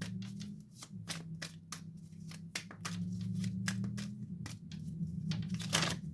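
A deck of tarot cards being shuffled by hand: a quick, irregular run of card slaps and riffles, the strongest one near the end. A steady low hum runs underneath.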